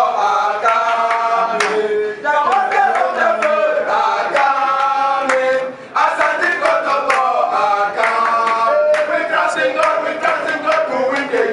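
Several voices singing a chant together, with sharp percussive strokes along with it. The singing runs in phrases, with short breaks about two and six seconds in.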